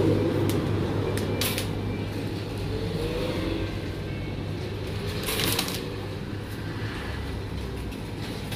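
Street ambience dominated by a steady low engine hum, with a couple of sharp clicks and a short noisy clatter about five seconds in.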